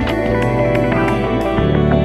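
Ambient background music with held chord tones; the bass moves to a new note about one and a half seconds in.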